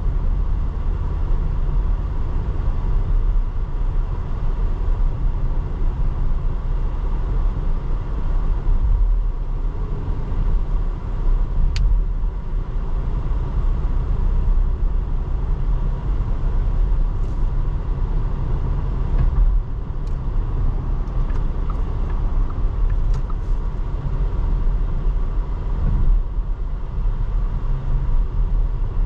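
Porsche Cayenne on the move: a steady low rumble of engine and road noise. There is one sharp click about twelve seconds in and a few light ticks later on.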